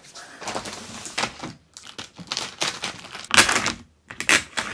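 Plastic film and packaging crinkling and rustling as takeout food trays are unwrapped, in irregular crackles with a louder burst about three and a half seconds in.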